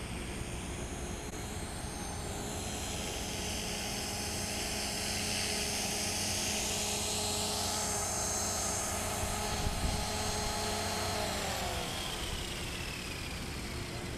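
Blade 450 electric RC helicopter's motor and rotor blades whining, growing louder as it comes in close to hover and land. About eleven seconds in, the whine slides down in pitch as the rotor spools down after touchdown.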